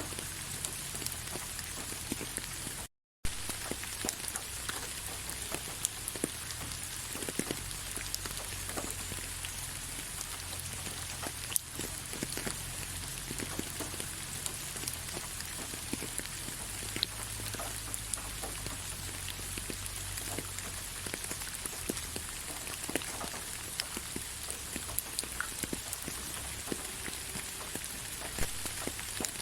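Gentle, steady rain, with many single drops ticking through the even hiss. The sound cuts out completely for a split second about three seconds in.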